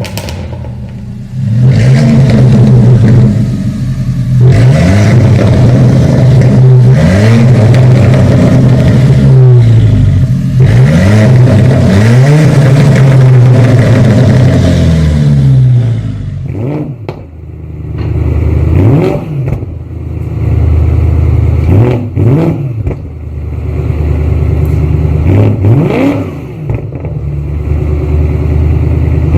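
Tuned performance car exhaust as the engine is revved and let fall again and again, popping and crackling on throttle release. About halfway through it changes to a quieter run of separate short rev blips, a couple of seconds apart.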